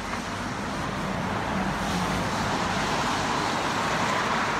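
Road traffic, with a car passing that swells about halfway through and fades near the end.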